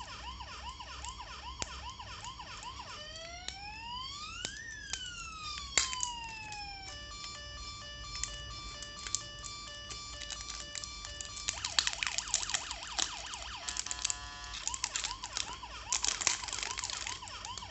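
Toy police car's electronic siren playing, cycling through a fast yelp, slow rising-and-falling wails and a steady pulsing tone, then back to the yelp. Clicks and clatter from handling batteries and plastic parts sound over it, with a burst of clattering about twelve seconds in.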